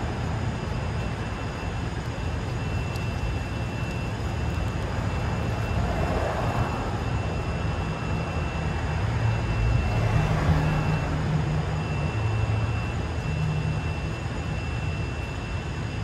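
City street traffic: a steady low rumble of engines and tyres, with passing vehicles swelling about six seconds in and again around ten seconds, under a faint high whine.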